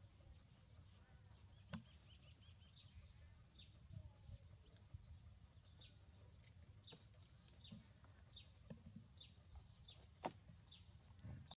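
Faint, many short high-pitched animal chirps, each falling quickly in pitch, scattered over a low background rumble, with two sharp clicks, about two seconds in and near the end.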